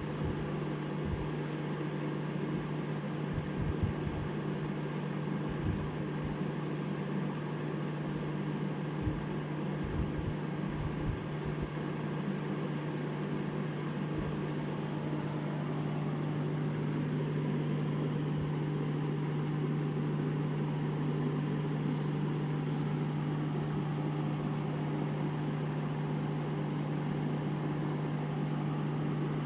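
Aquarium aeration running: a steady hum with a hiss of bubbling air from the air-driven sponge filters, with a few soft low thumps in the first dozen seconds.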